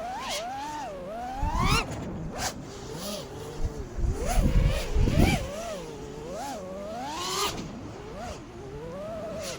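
The four brushless motors and props of a 5-inch FPV freestyle quadcopter (T-Motor Velox 2207 2550KV motors on 4S, Nazgul 5140 props) whine, their pitch swooping up and down continually as the throttle is punched and chopped. Low rumbling buffeting comes in loudly at about one and a half seconds and again at four to five seconds in.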